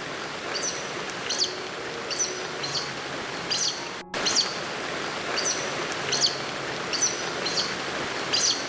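A bird calling repeatedly in short, high chirps about once a second over a steady background hiss. The sound cuts out for a moment about four seconds in, then carries on.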